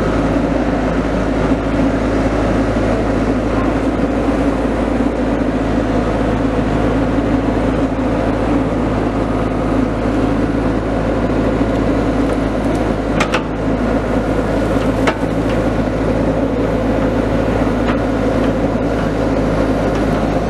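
Tracked excavator's diesel engine running steadily while the bucket digs into a pile of snow and dirt, with two short sharp knocks about two-thirds of the way through.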